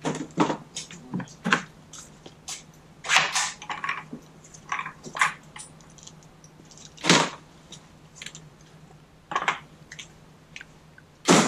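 Irregular clicks, knocks and rattles of hands and tools working on the car's plastic trim, a few of them sharper and louder, over a faint steady hum.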